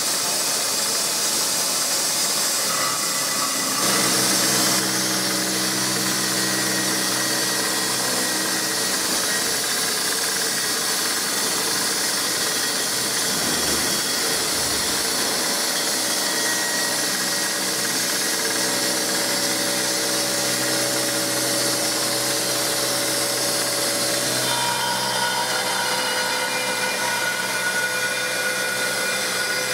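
Milling spindle of a TOS Kuřim FUT machining centre cutting the blades of a Francis turbine runner with a long-reach milling tool. A steady hiss of metal cutting with several steady whining tones over it; the tones shift about four seconds in and again near the end.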